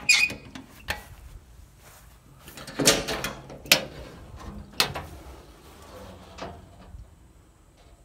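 Metal compartment door on a truck's utility service body being worked by hand: a series of sharp latch clicks and metal clunks, the loudest about three seconds in.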